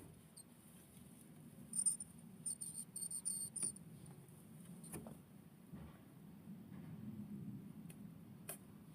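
Kinkuma hamster (a Syrian hamster) making faint, very high-pitched little ticks: a quick run of them about two seconds in, then two single clicks later on. These are the small spasms that the owner can't tell apart as sneezes or hiccups.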